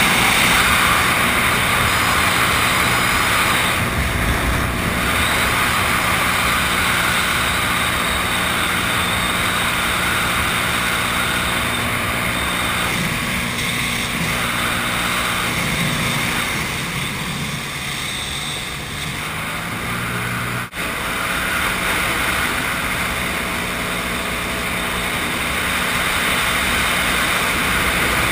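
Sea-Doo GTI SE personal watercraft under way, its engine and jet drive running steadily. About two-thirds through, the throttle eases and the pitch and level dip and waver for a few seconds before building again, with a momentary gap in the sound shortly after.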